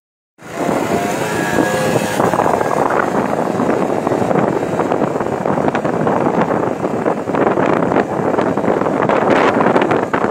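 Motor scooter's small engine running under throttle through a wheelie, mixed with a steady rush of wind noise on the microphone, with a pitched whine in the first couple of seconds.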